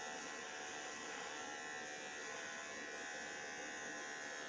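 Electric hair clipper buzzing steadily as it shaves the nape of the neck.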